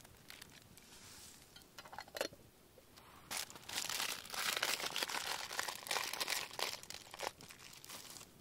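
Crinkling and rustling of a foil-lined package being handled and folded up. A few light clicks come first; the crinkling is loudest from about three seconds in, for about four seconds.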